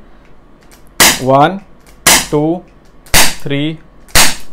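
Crosman SNR357 CO2 revolver firing BBs: four sharp shots about a second apart.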